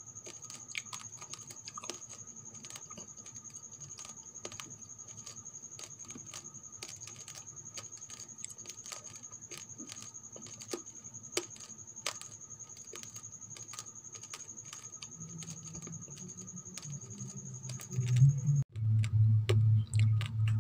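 Raw rice grains crunching as they are chewed: scattered small sharp cracks over a faint steady high whine. Near the end a much louder low, pulsing rumble starts.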